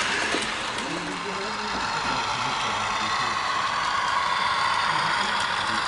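Model electric trains running on a layout: a steady whirring hiss of their motors and wheels on the track.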